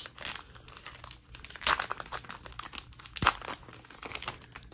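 Foil wrapper of a Panini Prizm football card pack crinkling and tearing as it is ripped open and the cards are pulled out: a run of irregular crackles, the loudest about two and three seconds in.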